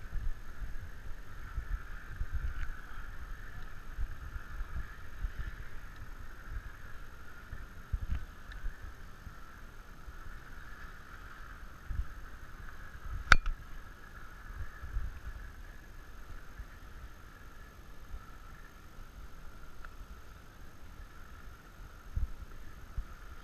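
Low thumps and rumbling from an elephant-back bench seat swaying and jostling as the elephant walks, under a steady high hiss. A single sharp click comes about thirteen seconds in.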